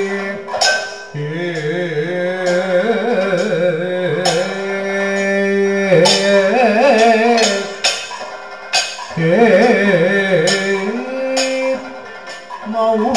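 Kathakali vocal music: a male singer's heavily ornamented melodic line over a steady drone, with sharp percussion strikes keeping time. The voice breaks off briefly a little past halfway, then resumes.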